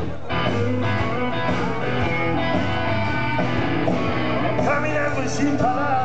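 Live blues-rock band playing an instrumental passage: electric guitar lead over a drum kit.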